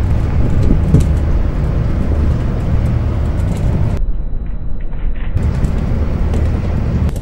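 A fishing boat's motor running with a steady low rumble.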